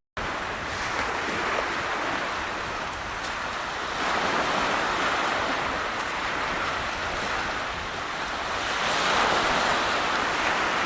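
Sea waves washing onto the beach, swelling louder twice, with some wind buffeting the microphone.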